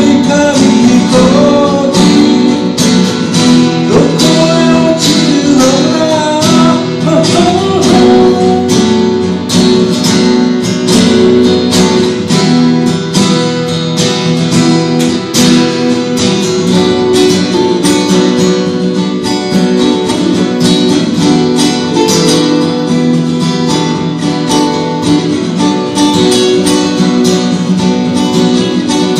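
Two acoustic guitars strummed and picked together in a folk duet. A voice sings over roughly the first eight seconds, then the guitars play on alone.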